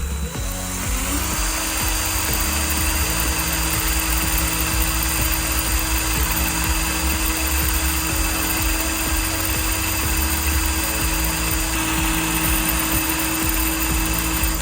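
Small electric power tool, such as a drill or rotary tool, spinning up over the first second and then running steadily at constant speed.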